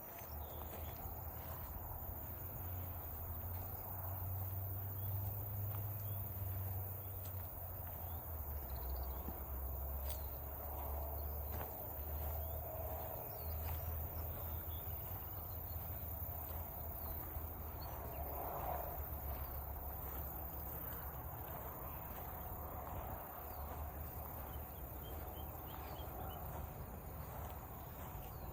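Rural outdoor ambience: insects chirping over a steady low rumble.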